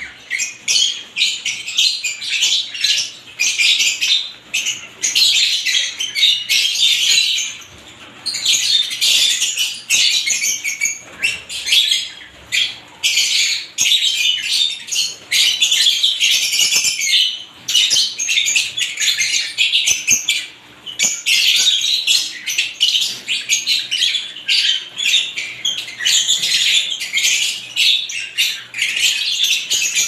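Several lovebirds chattering, a dense high-pitched chirping and squawking in long runs broken by brief pauses.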